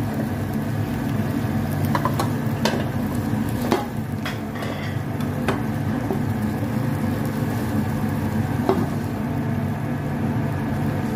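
Beaten eggs sizzling in a nonstick frying pan as they set into a thin flat omelette, over a steady low hum. A few light clicks and taps come through in the first half and once more later on.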